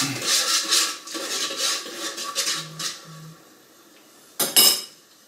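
A spoon scraping and stirring rice in a rice cooker's metal pot: a quick run of scrapes and knocks, then two short low tones and a single sharp clack about four and a half seconds in.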